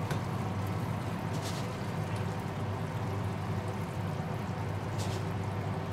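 Wooden spatula stirring a simmering ground pork sauce in a frying pan: wet stirring with a few brief scrapes against the pan, over a steady low hum.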